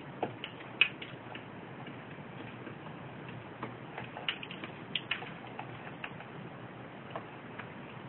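Pet doves pecking seed, irregular sharp beak taps on the seed and the wooden cage floor, several a second at times, the loudest about a second in, over a steady hiss.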